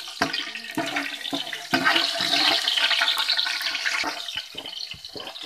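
Hot oil sizzling with whole spices frying in a large metal pot, with scattered crackles and clicks. The sizzle swells about two seconds in and eases off near the end.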